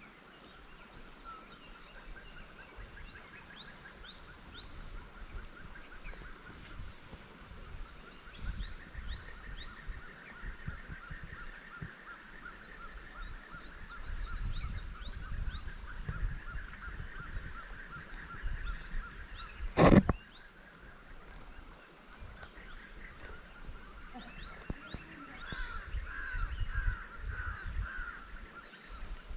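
Birds calling and chirping: many short high chirps over a busy chorus of rapid repeated calls, with irregular low rumbling bursts underneath. A single sharp knock sounds about two-thirds of the way through.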